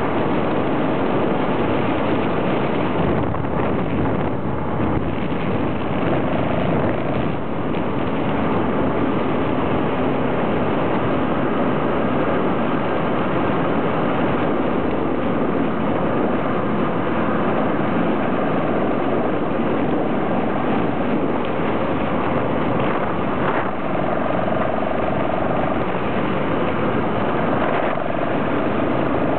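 Motorcycle engine running steadily at road speed with wind rushing over the microphone, heard from the moving bike itself.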